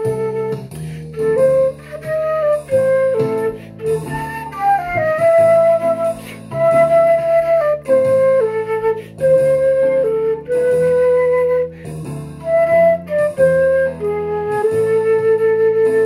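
Concert flute playing a slow melody, the notes moving mostly step by step with several long held notes along the way.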